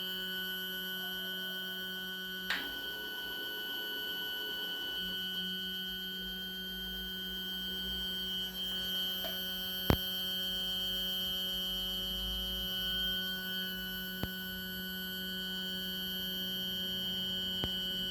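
SkyWatcher EQ6-R Pro telescope mount's stepper motor drive giving a steady electrical whine made of several fixed tones, the strange noise its owner is asking about. A few sharp clicks come through, about two and ten seconds in; after the first one the low part of the whine drops out for a couple of seconds, then comes back.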